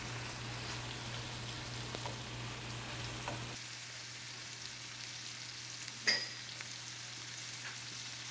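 Minced beef rib patties (tteokgalbi) sizzling in a hot cast-iron skillet: a steady hiss with small crackles, and one sharp click about six seconds in.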